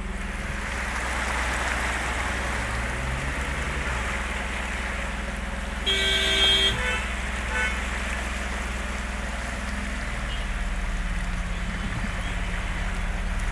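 A vehicle engine running while the vehicle drives through rushing floodwater, heard from inside the cabin, with a steady low rumble and the hiss of water. A vehicle horn toots once for under a second about six seconds in, and there is a fainter short toot just after.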